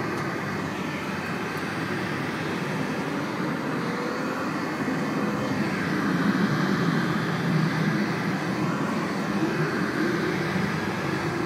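Heat gun running steadily, its fan blowing a continuous rush of hot air.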